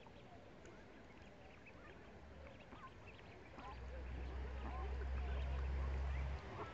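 Mallard ducklings peeping, a scatter of many short high calls. A low steady rumble comes in about halfway through and cuts off suddenly shortly before the end.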